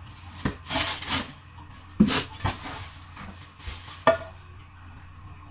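Granite-coated cookware being handled and lifted out of its cardboard box: a few sharp knocks of pan and handle against each other and the box, with scraping and rustling of the packaging.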